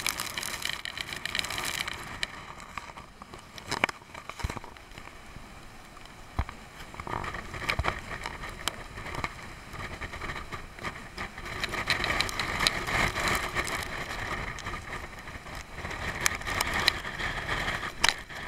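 Storm noise heard from behind an oil tanker's bridge window: a steady rushing of wind and sea that swells in the second half, with scattered sharp ticks of rain and spray hitting the window glass.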